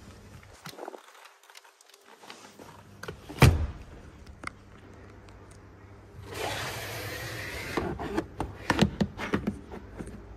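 Boot trim and fittings of a 2024 Honda Civic hatchback being handled. There is one hard knock about three and a half seconds in, then a rustling, scraping slide and a string of small clicks and taps.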